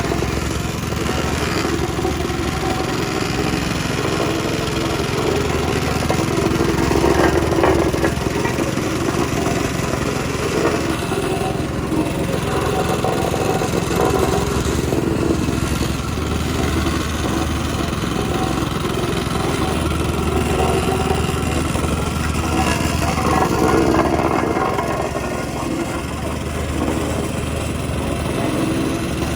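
Engine of a pothole repair machine running steadily, with small swells in level now and then.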